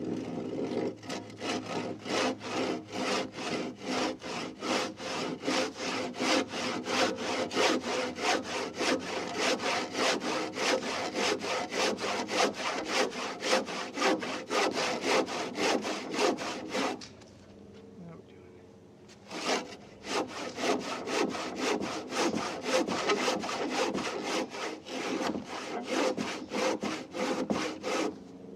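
Handsaw cutting through a wet timber rafter in quick, even back-and-forth strokes, about three to four a second. The sawing stops for a couple of seconds about two-thirds of the way through, then picks up again. The saw's set is not quite right, so it needs tuning up.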